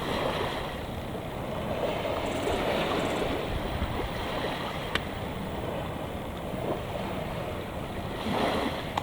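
Sea waves washing on the shore: a steady rushing wash that swells and eases slowly, with a single sharp click about five seconds in.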